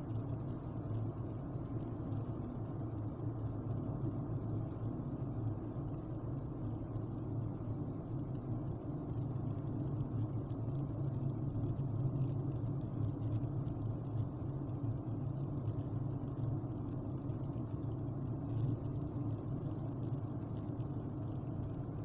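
Steady low road and engine rumble heard inside the cabin of a Kia Forte driving along a highway at road speed.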